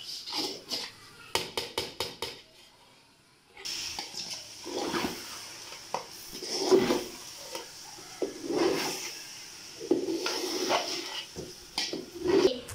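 A long metal spatula stirring rice and cooked beef in an aluminium biryani pot: quick clicks and knocks of metal against the pot at first, then a steady sizzle of the rice frying in oil, with a scrape of the spatula about every two seconds.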